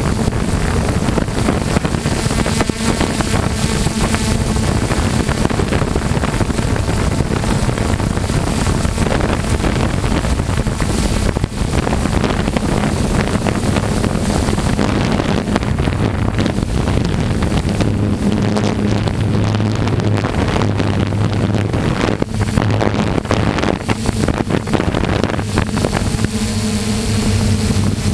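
Multirotor drone's electric motors and propellers humming steadily, recorded by its onboard camera, with heavy wind buffeting the microphone in fast forward flight. The motor hum shifts lower in pitch a little past halfway.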